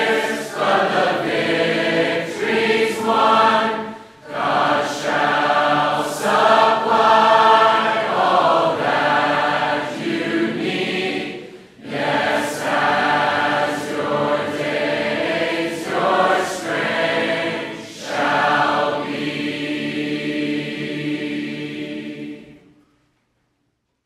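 A church congregation singing a hymn together with piano and guitar, in phrases broken by short breaths, ending on a long held final chord that stops a couple of seconds before the end.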